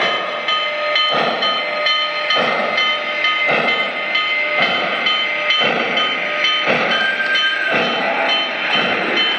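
Lionel Vision GS-6 O gauge model steam locomotive's onboard sound system chuffing slowly and evenly, about one chuff a second, as the engine rolls at low speed, over a steady high-pitched hum.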